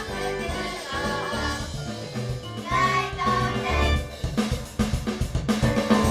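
Band music with a drum kit and a singing voice; a run of quick drum hits comes in about four seconds in.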